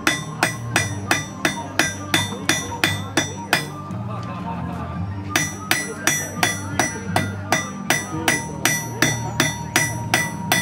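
Blacksmith's hammer striking a red-hot iron bar on a steel anvil at about three blows a second, each blow ringing. The hammering stops for under two seconds a little before midway, then resumes at the same pace.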